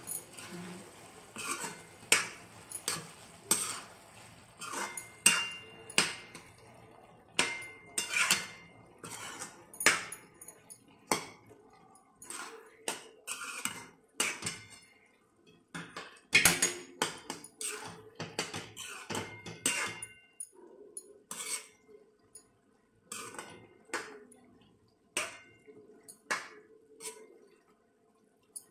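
Steel ladle knocking and scraping against a metal kadhai as a thick pea and aubergine curry is stirred to mix in the spices. Irregular clinks come about once or twice a second, some ringing briefly, and grow sparser in the last third.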